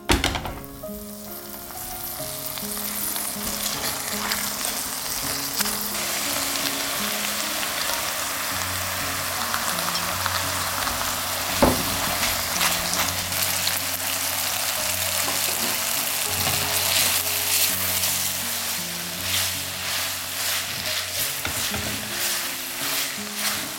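Food sizzling in a hot frying pan, starting abruptly as it hits the pan and going on steadily while it is stirred, with one sharp knock about halfway through and light clicks of the utensil later on.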